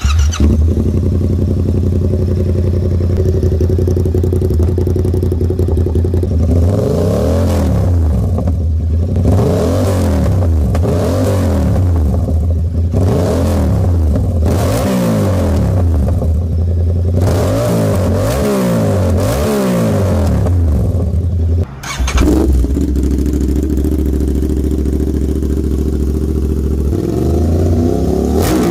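Yamaha R7's parallel-twin engine, breathing through an SC Project CR-T full exhaust, idles and is then blipped in a string of revs about every second and a half. About three-quarters through, the sound cuts to an Aprilia RS 660's parallel twin on an SC Project muffler, idling and starting to rev near the end.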